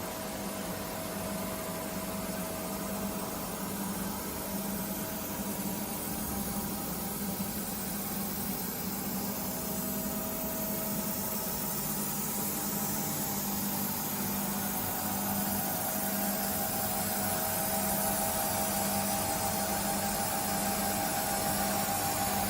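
Nomura NN-32YB2 CNC sliding-headstock lathe running: a steady mechanical hum and hiss with a few held tones, growing slightly louder, with a higher tone that strengthens in the last third.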